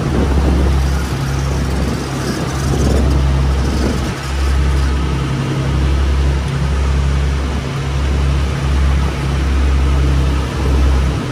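Sport-fishing boat's engines droning steadily underway, with the rush of the churning wake and wind.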